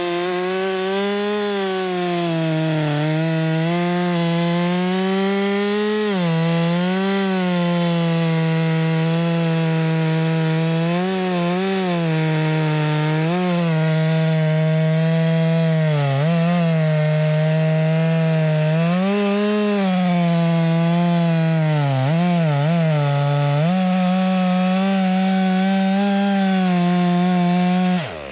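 Stihl MS462, a single-cylinder two-stroke chainsaw, running flat out while cutting into a large firewood round. Its pitch sags briefly every few seconds as the chain bites under load and then recovers. The sound cuts off suddenly near the end.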